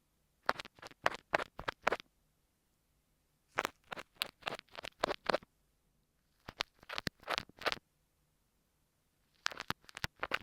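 Kinetic sand slime squished and pressed against an earphone microphone, in four bunches of quick crackling strokes with short silent pauses between.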